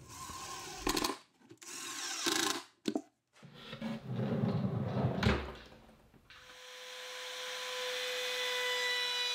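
A cordless impact driver running in short spurts while driving screws, then a drawer running on metal drawer slides. After that comes a trim router with a roundover bit, starting up and running with a steady whine that slowly grows louder.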